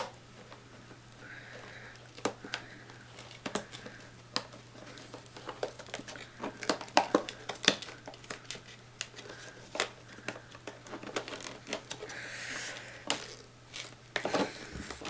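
Stiff clear plastic clamshell packaging being bent and pried apart by hand, giving irregular sharp cracks, snaps and crinkling.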